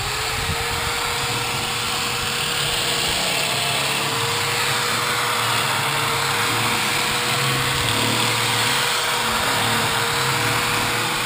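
Corded electric drill running steadily as it bores a hole into the truck's cab, its motor giving an even whine over the grinding of the bit.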